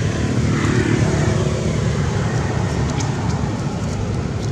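Steady low rumble with a hiss of outdoor background noise, with no distinct event standing out.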